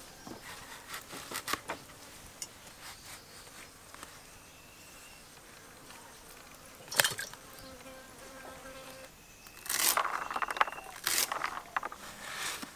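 Brinjals being cut on a bonti, a curved blade fixed upright in a wooden base: scattered sharp cutting clicks and knocks, one strong knock about seven seconds in, and a dense run of them from about ten to twelve seconds in.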